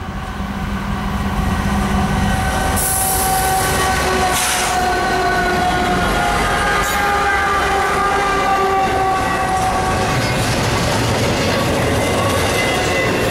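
Diesel freight locomotives, GE and EMD road units, passing close by with their engines running, growing louder over the first couple of seconds. They are followed by double-stack container well cars rolling past with steady wheel-on-rail noise and a ringing, wavering tone.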